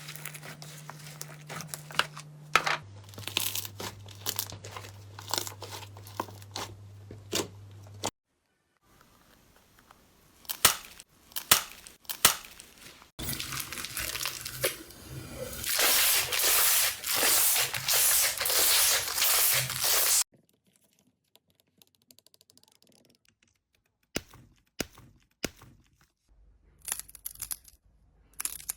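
Slime being squeezed, poked and pressed by hand, a run of sharp crackles, pops and squelches, with a stretch of dense crackling in repeated squeezes about once a second. It stops briefly, with near silence, before further crackling pokes.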